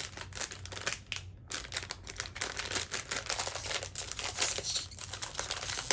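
Foil blind-bag packet crinkling and crackling as it is handled and torn open by hand, a dense run of rapid sharp crackles.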